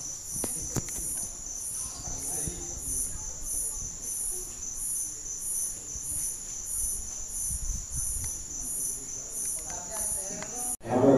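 Cricket chirping, a steady run of high chirps at about two a second, with faint voices underneath; the sound cuts off abruptly near the end.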